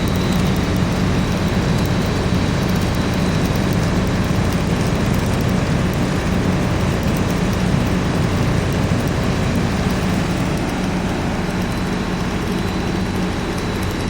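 LG air conditioner running: a steady rush of air from its fan over a constant low motor hum, with a faint steady high whine.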